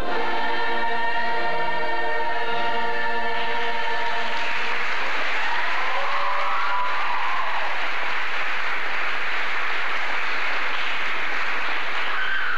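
Stage chorus of mixed voices holding a final sung chord, which ends about three and a half seconds in. Audience applause with a few cheers follows.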